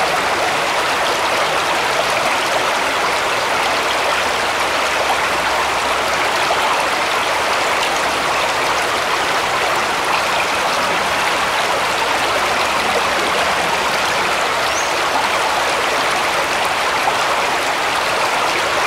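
Shallow woodland brook flowing over stones, a steady babble of running water.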